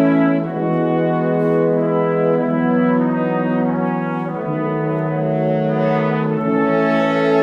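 Slow instrumental background music of sustained chords, the harmony shifting every one to two seconds.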